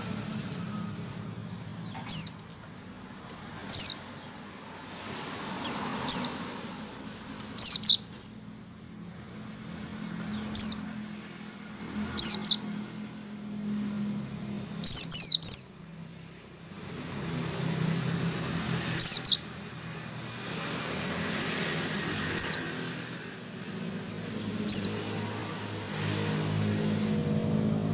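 White-eye (pleci) giving short, sharp chirps that fall in pitch. They come singly or in quick twos and threes every couple of seconds. These are its 'ngecal' calls, the warm-up notes a white-eye gives before breaking into full song.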